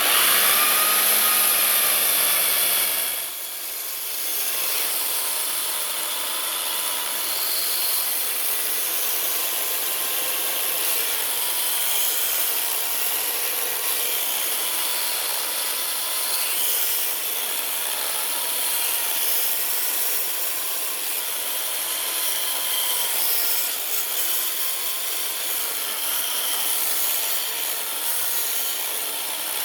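Power tool cutting and grinding into wood, a steady rasping whine that starts abruptly, louder for the first three seconds, then holds steady.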